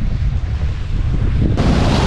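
Wind buffeting the action camera's microphone, a steady low rumble. About one and a half seconds in, it turns abruptly brighter into a hiss of skis sliding over packed snow as the run gets under way.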